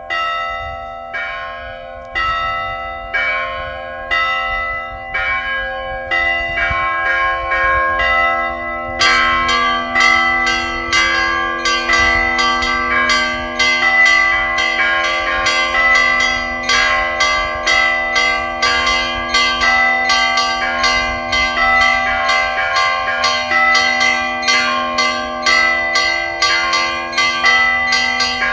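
Church bells ringing a peal. A few bells are struck about once a second over a lower bell's lingering tone, and about nine seconds in more, higher bells join in and the strokes come faster and denser.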